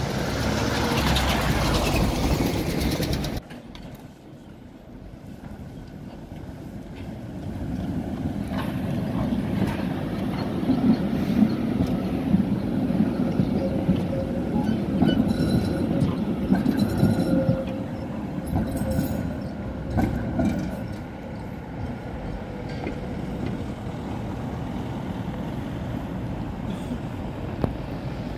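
An older Polish-built tram rolling close by over curved track at a junction. Its wheels rumble, building from about six seconds in, with a faint steady squeal and a few sharp clicks before fading after about twenty seconds. The first few seconds are a loud windy rush as another tram passes, cut off abruptly.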